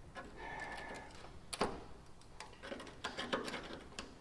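Irregular light clicks and taps as the locking ring of a Land Rover Defender fuel tank's sender unit is worked loose by hand, with a short squeak in the first second.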